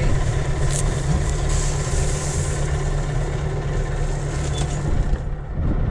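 Sailboat's auxiliary engine running steadily at low speed, a constant low rumble, while the boat is worked in neutral and reverse onto a mooring ball. A single short click about three quarters of a second in.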